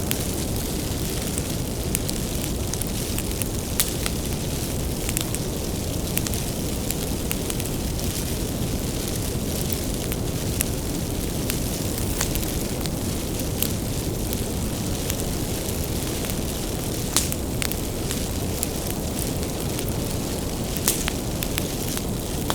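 Bonfire of firewood burning: a steady low rumble of flame with frequent sharp crackles and pops of the burning wood, and a few louder snaps.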